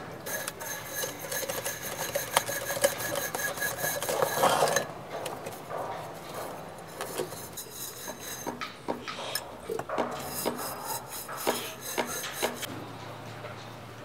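Aluminium moka pot parts being rinsed by hand: water poured over the metal with rubbing and clinking for about the first five seconds, then sparser scrapes and knocks of the metal pieces as they are handled.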